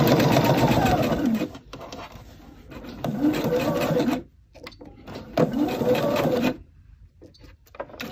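Computerized sewing machine stitching fabric in short runs. It runs steadily, winds down to a stop about a second and a half in, then sews two more short bursts, each speeding up and slowing down, with pauses between.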